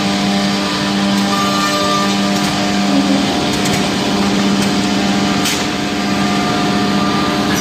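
Brandt KDF780 2C edge banding machine running: a steady motor hum with a strong low tone and several fainter higher ones over a noisy whir, with a brief tick about five and a half seconds in.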